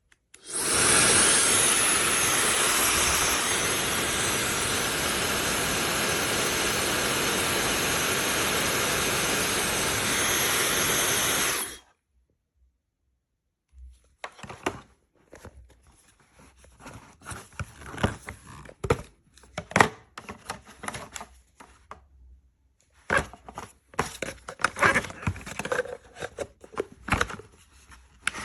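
OSOU high-speed hair dryer running steadily with a high-pitched whine for about eleven seconds, then cutting off suddenly, on a unit the owner says does not work normally. After a short pause come irregular clicks and knocks of handling.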